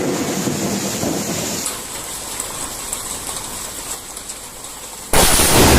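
Steady rain falling, then about five seconds in a sudden, very loud thunderclap from a close lightning strike.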